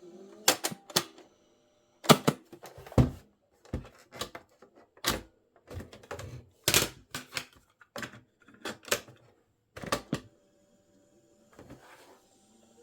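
A string of sharp mechanical clicks and clunks, roughly one or two a second and unevenly spaced, stopping near the end: the piano-key controls of a Philips radio cassette recorder's tape deck being pressed and released while its tape mechanism is struggling.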